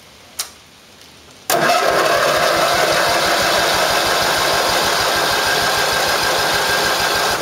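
The starter turns over a John Deere riding mower's twin-cylinder engine for about six seconds, with an even, rhythmic churn, after a small click. One spark plug is out for a compression test and the other is unplugged, so the engine does not fire. The cylinder under test reaches only about 45 PSI, which is low compression.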